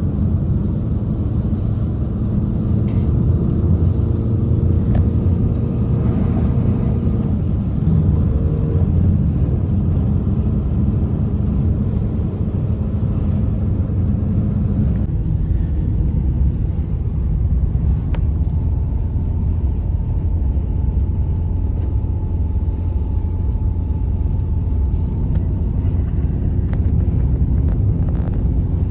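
Loud, steady low rumble of blizzard wind, with faint held tones above it.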